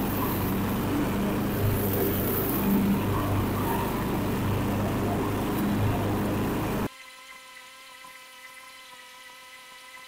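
Craftsman riding lawn mower's engine running with the blades cutting tall grass, a steady drone. About seven seconds in the sound drops off suddenly to a faint, steady hum.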